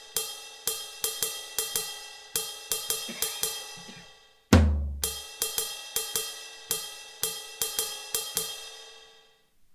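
Alesis SR-16 drum machine's ride bell sample struck in a repeating drum-machine pattern, several bright ringing strikes a second. A single deep thump lands about four and a half seconds in.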